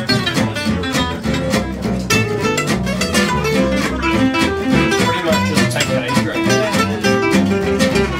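Acoustic swing-jazz band playing: two acoustic guitars, one strumming a steady beat and one playing melodic lines, over a plucked double bass.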